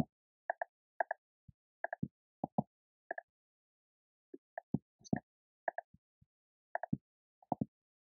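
Clicks of a computer mouse and keyboard keys, mostly in quick pairs, as text is copied and pasted. There is a short pause in the clicking about halfway through.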